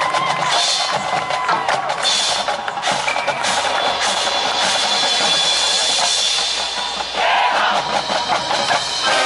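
Marching band playing, with its percussion to the fore: repeated drum and mallet-percussion strikes over held ensemble tones.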